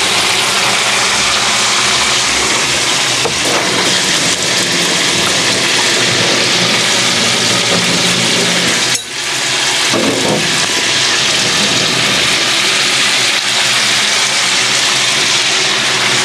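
Nile perch fillets in a mayonnaise marinade frying in hot oil in a wok, a loud steady sizzle that dips briefly about nine seconds in.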